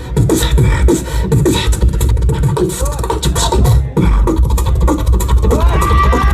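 Human beatboxing into a microphone, amplified through a club PA: a fast run of kick and snare sounds over a heavy bass, with gliding vocal sounds and a held high note near the end.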